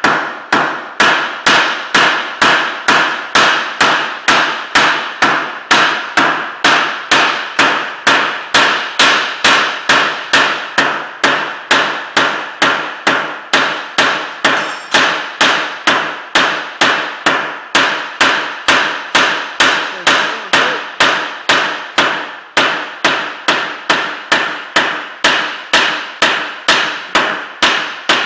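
Small hand hammer striking a red-hot rivet on a flat-bar steel gate, shaping the rivet head. The blows are steady, about two a second, each with a short metallic ring.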